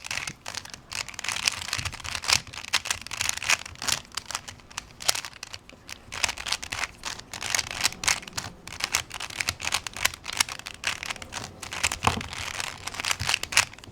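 Plastic layers of a twisted Rubik's Cube puzzle being turned rapidly by hand, a dense run of clicks and clacks several a second as the last moves of a solve are made.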